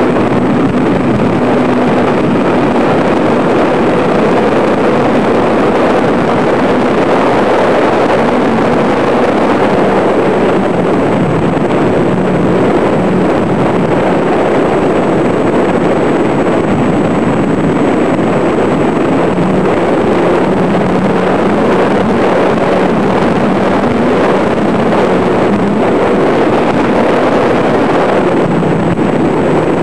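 Electric motor and propeller of a ParkZone T-28 radio-controlled model plane running steadily in flight, with a slightly wavering hum, under heavy wind noise on the microphone.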